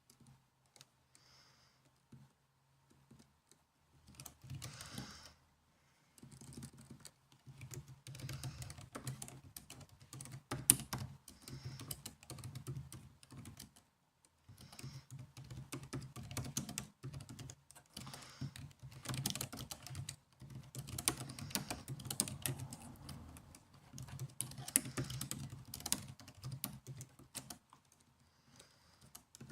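Typing on a laptop keyboard: quick runs of key clicks that begin a few seconds in, pause briefly about halfway, and stop near the end.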